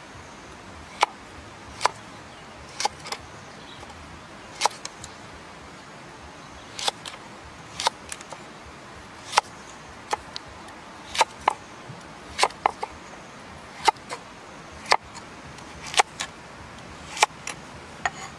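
Kitchen knife slicing a carrot lengthwise into strips on a round wooden chopping board, each cut ending in a sharp tap of the blade on the wood. The taps come about once a second, some in quick pairs.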